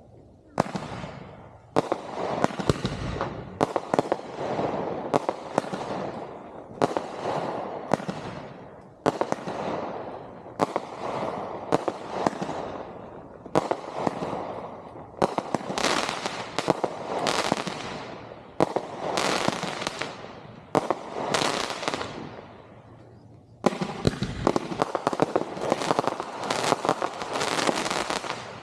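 Consumer-grade (1.4G) aerial fireworks going off in a steady barrage, sharp bangs one or two a second, each trailing off into a fading rumble. There is a brief lull near the end, then a denser run of bursts.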